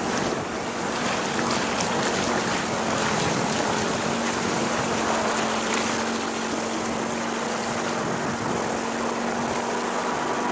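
Water rushing and splashing past a boat under way, with wind buffeting the microphone and a faint steady low hum underneath.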